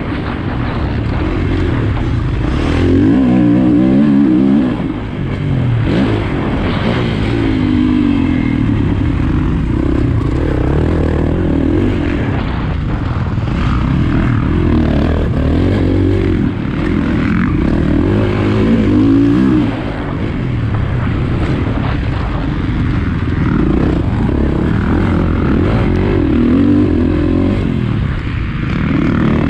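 Motocross bike engine ridden hard, its pitch rising and dropping again and again as the throttle opens and closes around the track. Heard from a camera on the bike itself, with rough wind and track noise under the engine.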